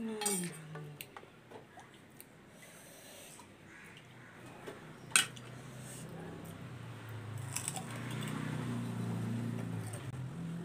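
Someone eating panipuri: puri shells crunching and wet chewing, with scattered small clicks. There is one sharp click about five seconds in, and a low steady hum grows over the second half.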